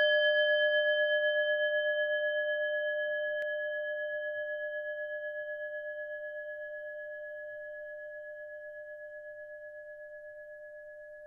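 A meditation singing bowl rings on after a single strike: one steady, bell-like tone with fainter higher overtones, slowly fading away with a gentle, regular wavering in its loudness.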